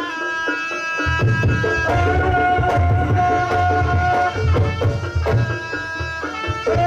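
Live traditional Javanese folk music of the kind that accompanies a Kucingan performance: hand-drum strokes in a steady beat under several held pitched notes, one long note held for about two seconds near the middle.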